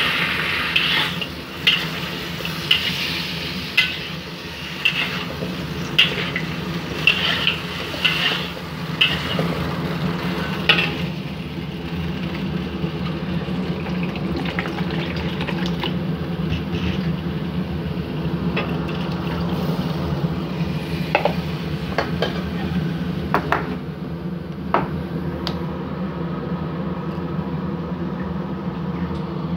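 Metal spatula stirring and scraping chicken wings and potato cubes in a wok of sizzling oil, clinking against the pan about once a second for the first ten seconds, then only now and then. A steady low hum runs underneath.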